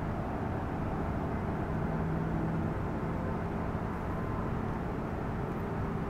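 Steady low rumble of distant road traffic, with a faint engine hum.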